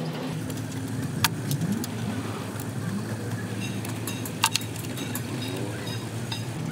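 Metal tool clinks, two sharp ones about a second in and near the middle plus a few fainter ticks, as a socket on a long extension bar is worked onto the bolts of the engine housing. Under them runs a steady low motor hum.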